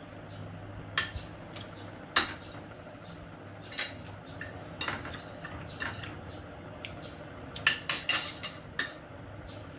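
Metal spoon and fork clinking and scraping against ceramic plates as food is scooped up, in scattered sharp clicks with a quick run of them about eight seconds in. A low steady hum lies underneath.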